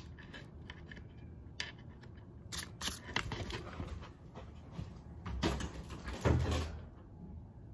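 Scattered knocks and rustles of a child moving about a room and handling an interior door by its knob. The loudest knock comes about six seconds in.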